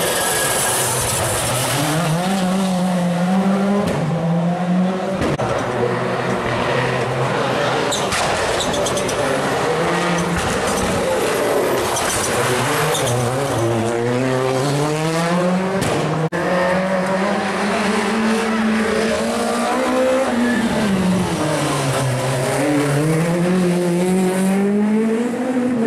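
Rally car engine revving hard and backing off again and again through a twisty stage, its pitch sweeping up and down several times, with tyre squeal.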